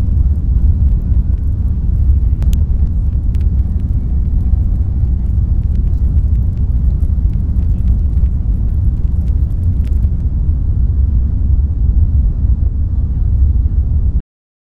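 Steady low rumbling noise with a few faint clicks, cutting off abruptly near the end.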